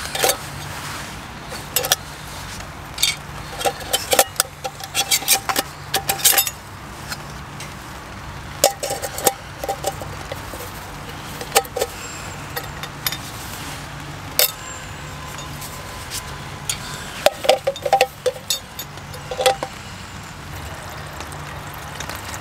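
Metal camping cookware from a Fire Maple cook set clinking and clattering as the nested pots, fry pan and utensils are handled, in irregular clusters of short ringing clinks over a steady low hum.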